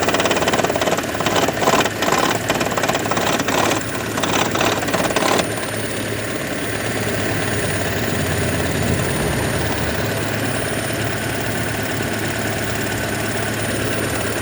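2012 Toyota Prius's 1.8-litre four-cylinder petrol engine idling with a loud knocking rattle that stops suddenly about five seconds in, after which the engine runs on with a steady hum. The owner says the rattle starts and stops along with the hybrid battery charging and cannot find its cause, having already replaced the coils, plugs and injectors.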